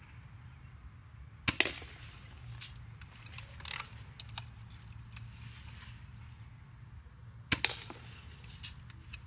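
Two BB gun shots about six seconds apart, each a sharp pop followed at once by a smaller click, with a few faint ticks in between.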